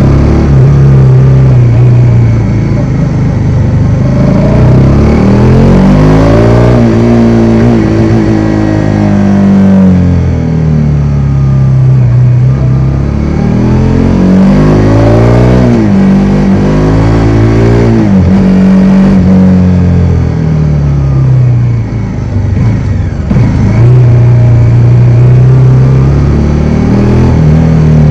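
Bajaj Dominar 400's single-cylinder engine running loud while riding, its pitch rising and falling several times as it accelerates and changes gear. The level drops briefly a little over twenty seconds in, then picks up again.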